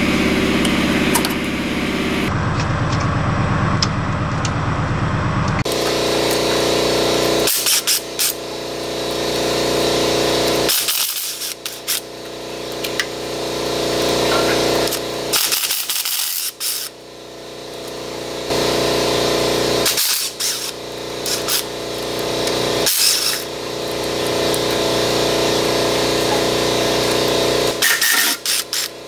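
Power ratchet spinning oil pan bolts out, running in several bursts of a few seconds each with short stops between.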